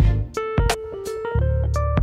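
Background music with a steady beat: a melody of short, changing notes over bass and drums.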